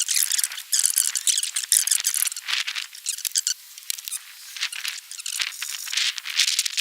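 Rapid squeaky rubbing and scraping strokes, high-pitched and with no low rumble, in quick irregular bursts throughout.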